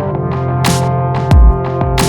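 Electronic music with a steady beat: held synth chords over deep bass kicks and sharp cymbal hits.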